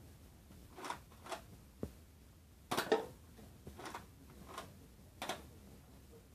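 Nerf Roughcut 2x4 pump-action dart blaster being worked and fired, with foam darts hitting plastic cups and the floor: about seven sharp clicks and clacks spaced half a second to a second apart, the loudest cluster about halfway through.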